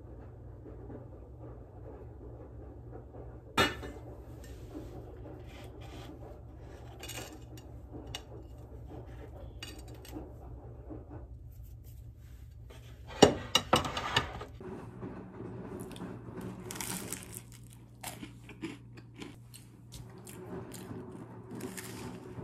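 Kitchenware being handled: small clinks, scrapes and rustles, with a sharp clack about three and a half seconds in and a short burst of clattering around thirteen seconds. A low steady hum sits underneath for the first two-thirds, then drops away.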